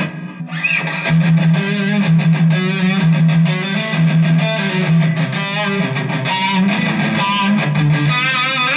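Telecaster-style electric guitar played through a Zoom G5 multi-effects pedal into a Line 6 combo amp: quickly picked notes and strums, loud and continuous, on the patch the pedal loaded when the guitar was plugged in.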